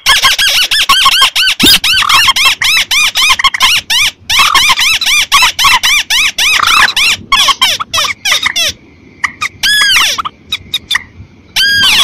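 A bird-lure recording of mixed swamphen, crake and rail calls: a dense, overlapping stream of rapid, sharp, squeaky arched notes. It thins briefly about three-quarters of the way through, then resumes.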